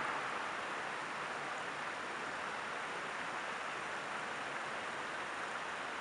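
Creek water rushing steadily over a shallow ledge.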